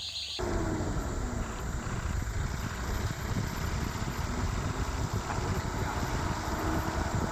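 Steady rumble of a moving vehicle, starting abruptly just after the start, with a faint engine hum that drifts in pitch.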